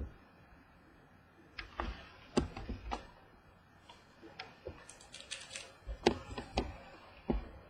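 Baseball cards being handled: irregular sharp clicks and taps as cards are flipped and set down, about a dozen over several seconds.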